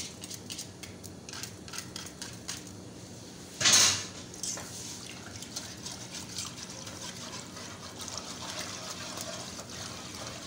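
Wire whisk beating a milk-and-flour white sauce in a nonstick saucepan: light clinks and scraping against the pan, with one brief louder burst a little under four seconds in, then quicker, steady whisking to the end.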